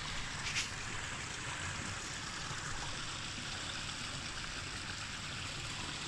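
Steady rushing of river water at a waterfall.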